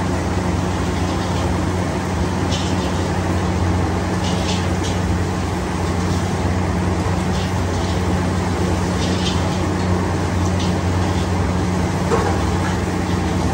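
Automatic fried rice machine running: a steady low hum under repeated short metallic scrapes as its motorised stirring arms drag against the steel wok.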